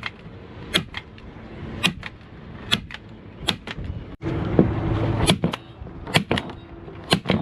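Hand staple gun firing staples through fabric and trim into a plywood panel: a dozen or so sharp snaps, about one a second, some in quick pairs.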